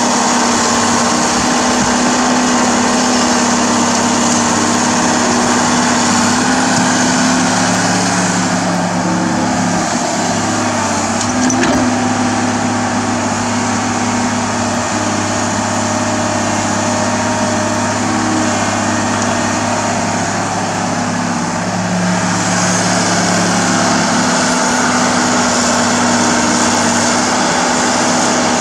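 Komatsu hydraulic excavator's diesel engine running steadily under digging load, its note shifting a few times as the boom and bucket work. One short knock about twelve seconds in.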